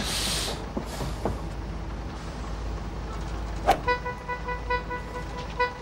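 Single-deck bus engine running with a steady low rumble, with a short hiss of air as the doors open at the start. A sharp knock comes at about three and a half seconds, then a light tune of repeated clear notes begins.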